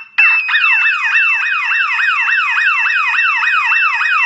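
SB1 sound bomb and a security alarm bell box's horn siren sounding together off a 12 V battery pack: a steady piercing tone over a falling pitch sweep that repeats about four times a second. Deafening.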